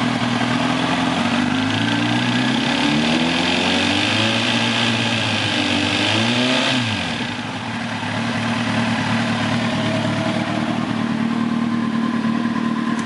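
2006 Kawasaki ZX-10R's inline-four engine revved lightly off idle, rising slowly, holding, dropping back, blipped once more and then settling to a steady idle about halfway through. Under this light throttle the owner hears a ticking knock that stops when he lets off, which he suspects could be rod knock, or which others take for the timing chain tensioner or a bearing.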